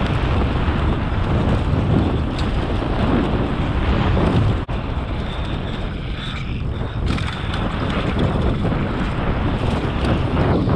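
Wind buffeting an action camera's microphone on a mountain bike descending a dry dirt trail, mixed with the tyres rolling over dirt. The noise is loud and steady, with a split-second dropout a little under halfway through.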